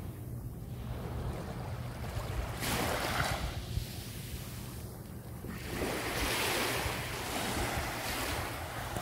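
Small sea waves washing onto the shore, swelling up twice, about three seconds in and again around six seconds in, over wind rumbling on the microphone.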